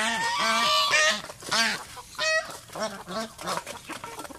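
Domestic white geese honking, a quick run of repeated calls that is loudest in the first second and a half, then further calls spaced out.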